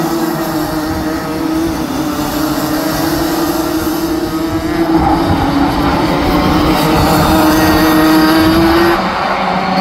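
A pack of Rotax Max 125cc two-stroke kart engines racing at high revs, a steady drone that wavers in pitch. It grows louder through the second half and drops suddenly near the end.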